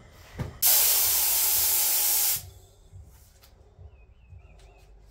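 Paint spray gun fired in a short test burst onto cardboard, its air pressure turned down to 40 psi: an even hiss of air and atomised paint that starts and stops sharply and lasts just under two seconds.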